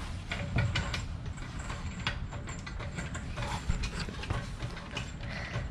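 Irregular clinks and knocks of metal hand tools and parts being handled during suspension work on a truck.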